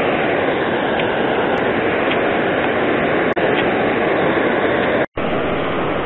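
Steady rushing of river water pouring over a concrete weir spillway, an even, continuous roar. It cuts out for a split second about five seconds in.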